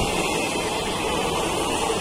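Passenger train coaches running past close by: a steady, loud noise of wheels running on the rails.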